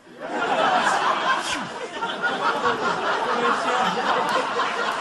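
Audience laughing: a dense, sustained crowd laugh reacting to a comedian's punchline.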